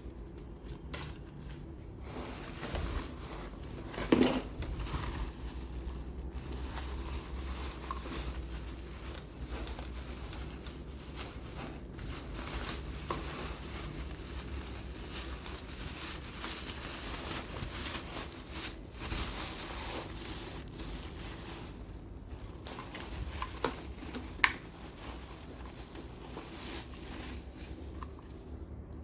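Packaging being handled during unboxing: continuous rustling and crinkling of plastic and cardboard, with a couple of sharp knocks, one about four seconds in and one near the end.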